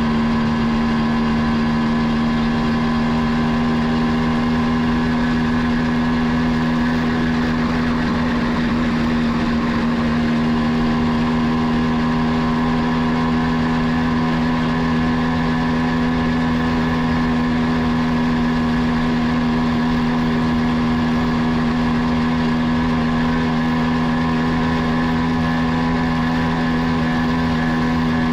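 Kawasaki B1's single-cylinder two-stroke engine running at a steady, unchanging speed while cruising, heard from the rider's seat.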